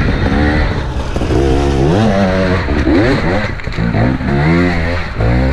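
Enduro dirt bike engines revving up and down in repeated surges as they pick their way up a rocky trail climb.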